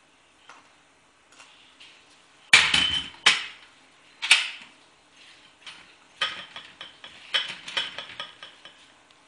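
Measuring cup and kitchen containers knocking and clinking as a cup of sugar is measured out: a loud pair of knocks about two and a half seconds in, another knock a second later, then a run of lighter clinks with a ringing note over the last few seconds.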